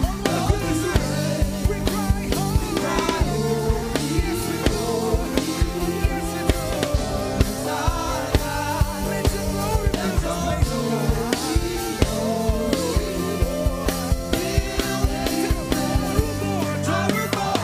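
Live gospel worship music: a group of singers singing a praise chorus into microphones over a band, with a drum kit keeping a steady beat.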